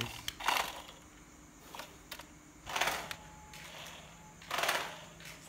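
Small electric motor of a toy remote-control bus whirring in three short bursts as it is first tested, with a few light clicks between the bursts.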